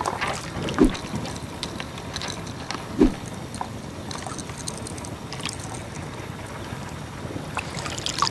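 Water sloshing and lapping close to the microphone around a wading angler, with scattered small clicks and two dull thumps about one and three seconds in.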